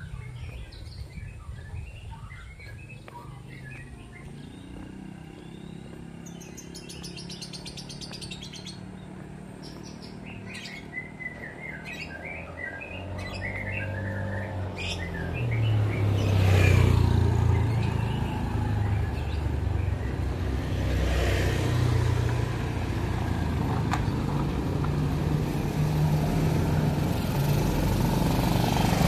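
Small birds chirping through the first half, over a faint engine. About halfway a vehicle passes loudly, and near the end a motorcycle engine comes up close and grows louder.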